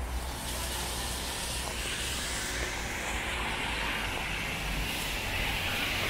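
Steady hiss of rain and wet-road city traffic, with a low rumble of vehicles, growing a little louder near the end.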